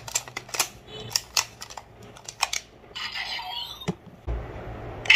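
Hard plastic clicking and clacking as a DX Two Side Driver toy belt and its Jackal Vistamp are handled and the stamp is pulled out of the driver, with a dozen or so sharp clicks in the first three seconds. A low steady hum starts about four seconds in.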